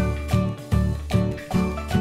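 Upbeat background music with a steady beat, about two to three beats a second.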